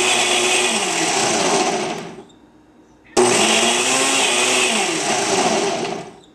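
Electric blender running in two bursts, about two seconds and then about three seconds, with a short pause between; its motor pitch wavers up and down.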